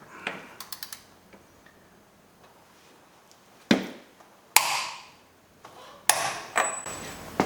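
Hand tools working on a steel wheel hub: a quick run of light clicks, then four sharp metallic knocks, each with a short ring.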